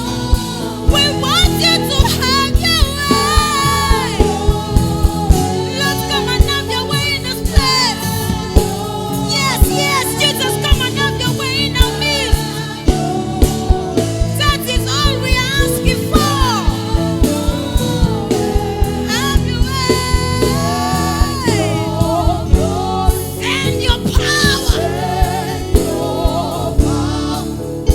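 Live gospel worship music: singers with backing vocals over keyboard chords and a steady drum beat.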